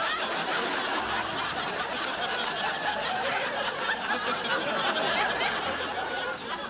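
Sitcom audience laughing, a dense steady crowd laugh held through.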